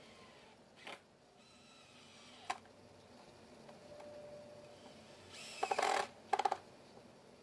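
Cordless drill driving a screw into the pine table boards: two short runs of the motor about five and a half seconds in, the second one shorter, each with a rapid chatter.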